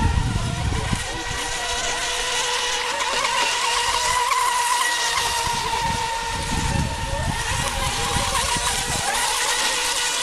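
Radio-controlled racing monohull boats running flat out across the water, giving a steady high-pitched motor whine, with other tones sliding up and down as boats pass. Low rumbling comes and goes underneath.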